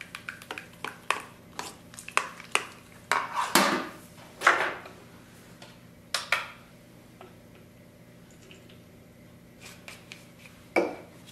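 A tint brush clicking and scraping in quick taps against a plastic hair-colour mixing bowl as toner is mixed, with two louder clatters about three and a half seconds in. After that come occasional knocks of plastic product bottles being handled on a shelf, ending in one louder clack.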